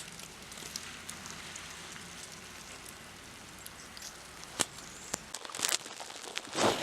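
Steady hiss of falling wet snow with scattered light ticks, and a few louder crunches near the end.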